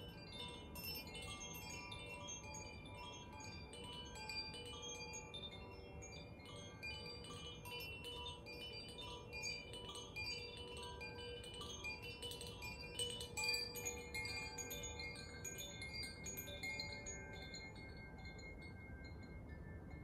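A Zaphir chime and a bamboo Koshi chime, held by their cords and swung by hand, ringing in a dense shimmer of many overlapping tones as their clappers strike the rods. The strikes thin out over the last couple of seconds, leaving a few tones ringing on.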